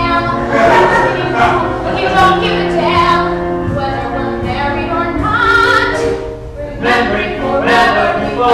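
Several voices singing a musical-theatre number together in harmony, with women's voices to the fore.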